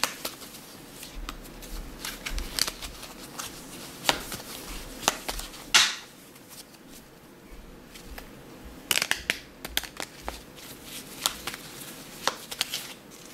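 Tarot cards being shuffled by hand: a run of irregular snaps and flicks, with a longer riffle about six seconds in and a quick cluster of snaps around nine seconds.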